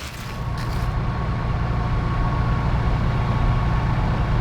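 Four-wheel-drive vehicle's engine running with a steady low rumble, growing louder over the first second and then holding even.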